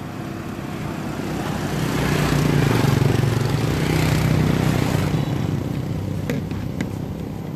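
A motor vehicle passing close by: its engine hum and road noise swell to their loudest about three seconds in, then fade away.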